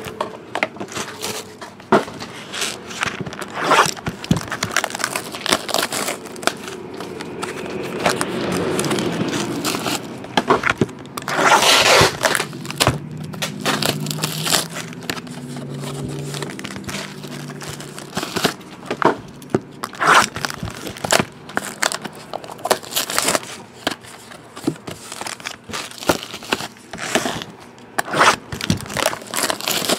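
Hands opening a trading-card box and handling its foil-wrapped card packs: crinkling wrappers, cardboard and packaging handled, with many sharp clicks and crackles throughout and a denser rustling stretch about twelve seconds in.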